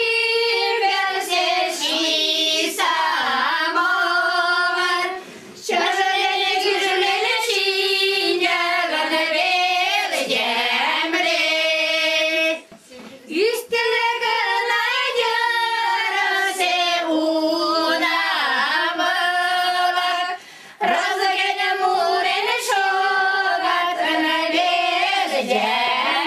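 A group of Mari women singing a folk song together, in long held phrases with short breaks between them.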